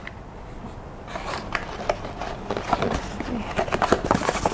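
A small cardboard accessory box being opened and handled, with irregular light taps, scrapes and rustles that grow busier about a second in.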